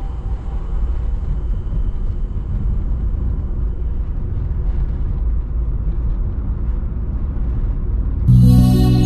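Steady low road noise of a car driving on a paved road, engine and tyres heard through a dash-mounted camera. Music comes in near the end.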